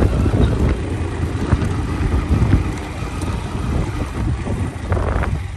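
Motorcycle riding over a rough gravel track: loud wind buffeting on the microphone over the rumble of the engine and tyres, with small scattered knocks from stones.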